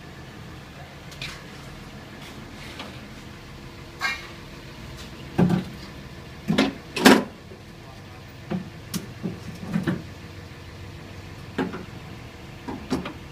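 Irregular knocks and clunks from parts being handled inside a stripped-out car cockpit, about ten in all, the loudest about seven seconds in.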